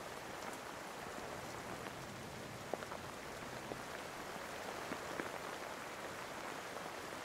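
Steady rain: an even hiss with scattered drops ticking.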